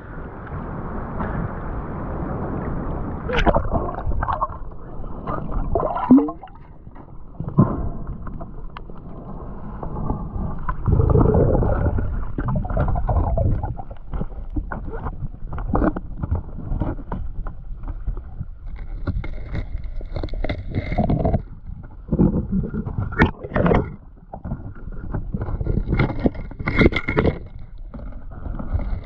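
Muffled water sloshing and gurgling around a diver, broken by many sharp knocks and scrapes.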